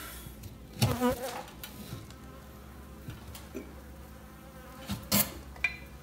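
Honey bees buzzing steadily in the air close around, a disturbed colony that is stinging. A brief louder sound comes about a second in and a sharp knock about five seconds in.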